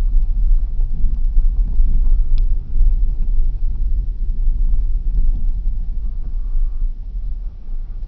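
Car driving, heard from inside the cabin: a steady low road and engine rumble, with a brief high squeak about two and a half seconds in.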